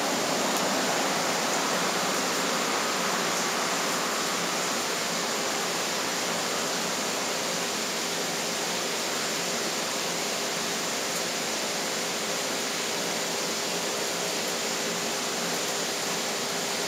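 A steady, even hiss with no separate sounds in it.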